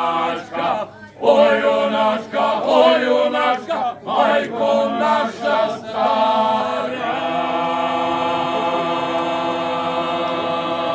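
Male a cappella group of about seven voices singing a Dalmatian folk song in close harmony: short sung phrases with brief breaths between them, then the song's final chord held long and steady for about five seconds.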